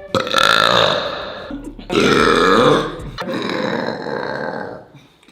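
Three long, loud burps from a person belching deliberately, one after another, each lasting about a second or more.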